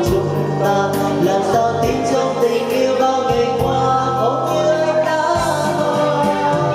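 Karaoke singing: a solo voice sung into a microphone and played through the room's speakers over a backing track with a steady beat.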